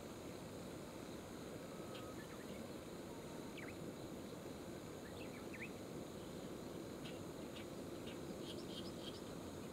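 Steady low rush of the flowing river, with a few faint, short high chirps of small birds scattered through it, coming more often near the end.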